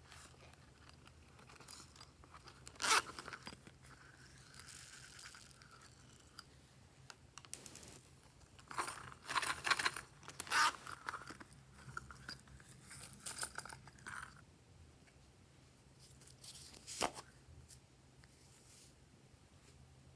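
Glossy slime being worked by hand, crackling and tearing in irregular bursts as it is stretched and pressed. Sharper crackles come about three seconds in, in a cluster around ten seconds, and once more near seventeen seconds.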